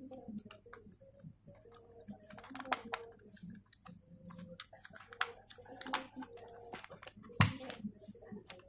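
Plastic clicks and rattles from a white power strip with a red rocker switch being handled, with one loud knock near the end.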